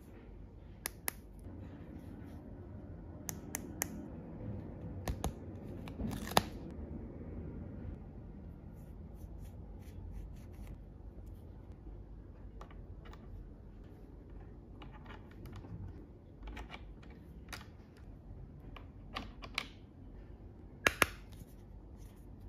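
Hard plastic toy kitchen pieces, a spatula and a small frying pan, handled and set in place: scattered light clicks and taps, the sharpest about six seconds in and a quick double click near the end.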